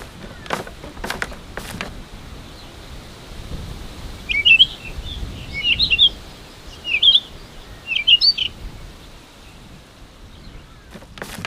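A bird calling in four short bursts of quick chirps about four to nine seconds in, over a low steady outdoor rumble. Footsteps sound near the start and again near the end.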